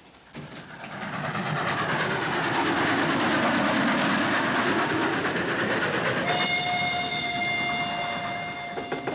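Steam train running at speed, its wheels clattering over the rail joints in a dense rattle that swells in over the first second. About six seconds in, the locomotive's steam whistle starts one long steady blast that is still sounding at the end.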